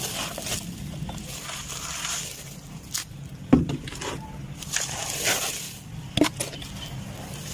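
A brittle, dry material such as sand cement or dried mud crumbled and crushed, with scattered crunches and crackles. The sharpest crack comes about three and a half seconds in and another near the end, over a low steady hum.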